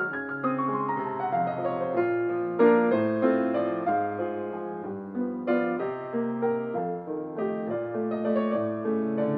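Acoustic grand piano played solo: an instrumental piece of chords under a melody, the melody stepping down in pitch over the first couple of seconds.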